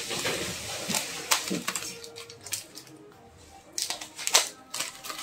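Kitchen scissors snipping through plastic snack wrappers, with the crinkling of the packets. There are several sharp snips and a quick cluster of them about four seconds in.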